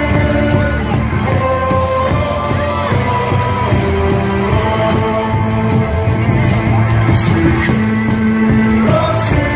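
A Korean pro-baseball player cheer song: upbeat band music with sung or chanted melody, playing steadily.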